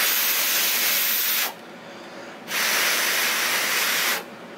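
A person blowing on a freshly soldered joint to cool it: two long breaths of rushing air, each under two seconds, with a short pause between.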